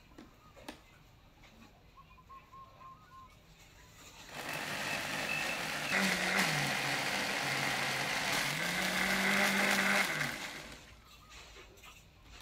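Electric countertop blender grinding a chopped chili-and-herb paste in a small jar, with a couple of light clicks as the jar is seated on the base. The motor starts about four seconds in, its pitch dips and then climbs back, and it cuts off near the end with a short wind-down.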